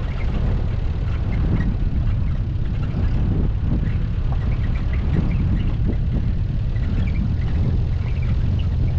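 Car driving, a steady low rumble of engine and road noise, with faint short high chirps scattered through it.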